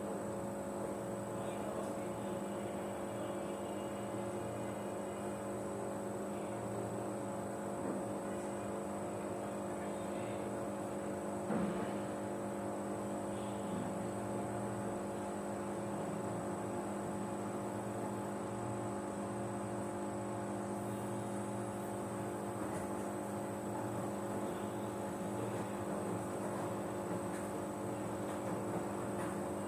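Samsung front-load washing machine running mid-cycle: a steady motor hum made of several constant tones, with a single brief knock about eleven seconds in.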